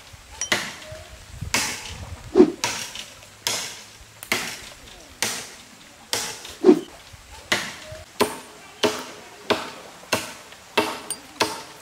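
A blade chopping into wood with steady, repeated strikes, about one and a half a second; two of the strikes are heavier, with a deeper knock.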